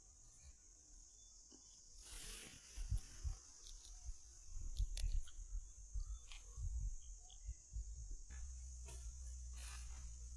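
Steady high-pitched insect drone, with scattered clicks and low thumping rumbles on the microphone; a steady low rumble sets in near the end.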